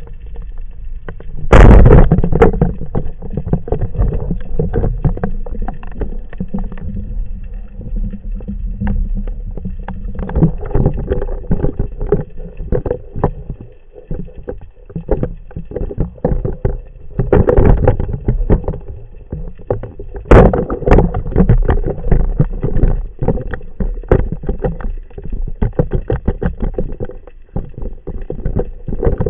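Underwater noise picked up by a camera in its waterproof housing on a swimming spearfisher: a steady low rush of water with many small irregular clicks and knocks. Sharp louder cracks come about two seconds in and about twenty seconds in, the first followed by a second of loud rushing.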